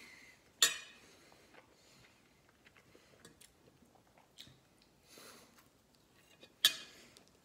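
Quiet chewing and small clicks of food being handled. Two sharp clicks stand out, one just after the start and one near the end.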